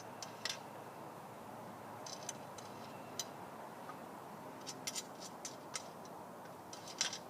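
Thumb screws being unscrewed from the base plate of a tablet stand: small, irregular metallic clicks and ticks, with a cluster about five seconds in and the loudest click near the end.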